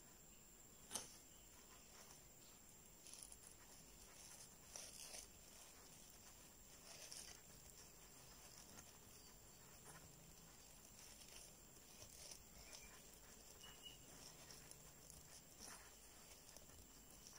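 Near silence, with the faint rustle of yarn being drawn through stitches by a metal crochet hook and light ticks of the hook against the work. One sharper tick comes about a second in.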